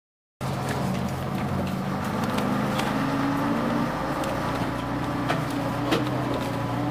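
Vintage bus's diesel engine running steadily as the bus moves, heard from inside the passenger saloon, with light rattles and clicks now and then. It starts suddenly about half a second in.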